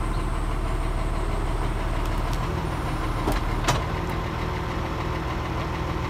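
Tractor engine idling steadily, with two sharp knocks about three and a half seconds in.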